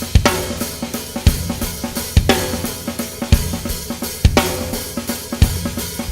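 Drum kit played in a fast 6/8 groove built on the Swiss Army triplet rudiment (a flam and two taps, repeated without alternating), with snare, kick drum, hi-hat and cymbals. A strong kick-drum accent lands about once a second.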